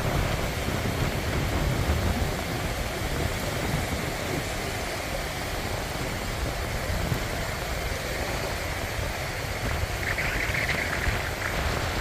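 Small waves breaking and washing up a sandy beach: a steady surf hiss over an uneven low rumble. About ten seconds in, a brief higher-pitched sound rises above the surf for about a second.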